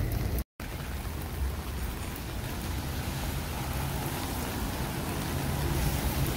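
Steady rain falling on wet pavement, an even hiss with a low rumble under it. The sound cuts out completely for a moment about half a second in.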